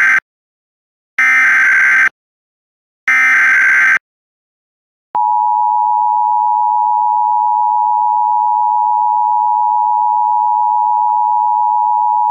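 Emergency Alert System signal: the end of one SAME header data burst and two more bursts of warbling digital tones, each about a second long, then about 5 s in the steady two-tone EAS attention signal (853 and 960 Hz). The header encodes a child abduction emergency (Amber Alert).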